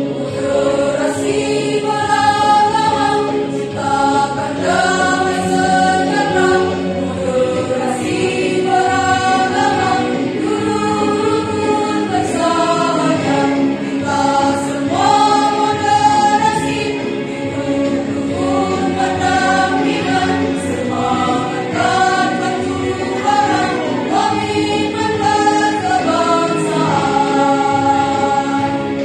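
Women's choir singing in harmony, with held lower parts under a melody that rises and falls in phrases of a few seconds.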